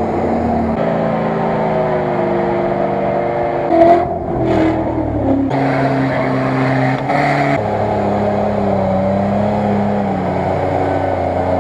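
Off-road 4x4 SUV engines running hard at high revs while pushing through deep mud. The engine note holds fairly steady, then jumps to a new pitch several times, with a brief louder surge about four seconds in.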